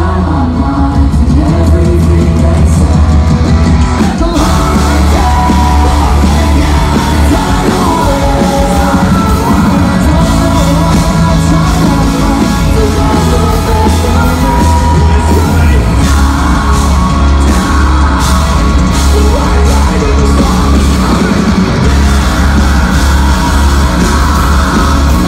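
Live metalcore band playing at full volume: distorted electric guitars, bass and drums with a vocalist singing and yelling over them.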